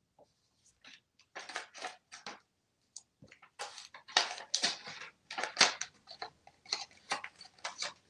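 Toy paper money crinkling and rustling as an African grey parrot grabs and works the bills with its beak, in irregular scrunching bursts that grow busier and louder about four seconds in.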